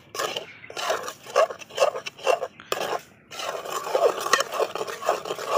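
Metal ladle scraping and knocking against a metal karai while steamed rice-flour dough is stirred and mashed. Repeated short strokes about two a second, with a brief pause about halfway through.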